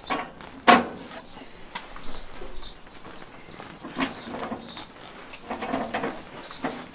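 Small birds chirping over and over in the background, while racks of raw pork ribs are handled and laid on a smoker's metal grill grate, giving a sharp knock about a second in and a few softer knocks after it.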